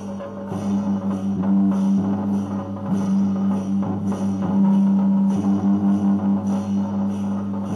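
Music with drums and percussion in a quick, even rhythm over a steady low held tone.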